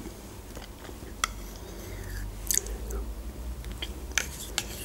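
Mouth sounds of someone eating yogurt with a metal spoon: soft lip smacks and light clicks, about five of them, spread through the stretch.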